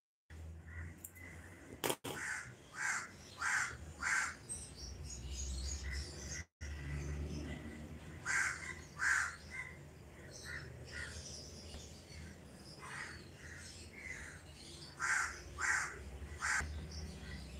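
Crows cawing in short runs of two or three calls, over a low steady hum.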